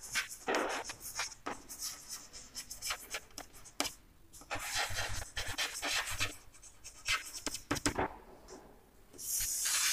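Chalk scratching and tapping on a blackboard as words are handwritten in short strokes, ending in one longer scrape as the heading is underlined.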